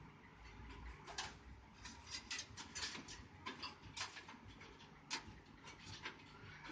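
Scattered light clicks and taps, several in quick succession and then sparser, of small hard parts being handled.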